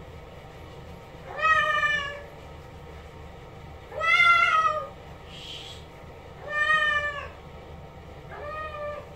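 A cat meowing during its bath: four long, drawn-out meows about two and a half seconds apart, the last one softer.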